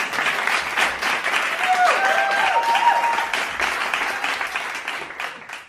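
Children cheering and clapping, with a few brief high calls about two seconds in; the cheering fades out near the end.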